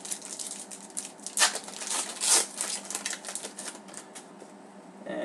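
Trading cards being handled and flipped through one by one: an uneven run of quick clicks and flicks of card stock, with two louder snaps near the middle.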